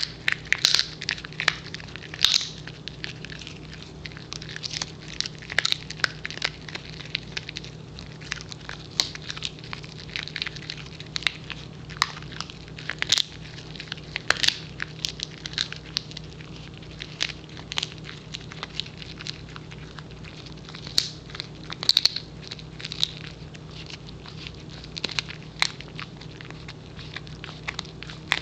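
Pembroke Welsh Corgi chewing a beef pizzle stick: irregular gnawing and crunching clicks as her back teeth work the hard, dried stick, a few times a second.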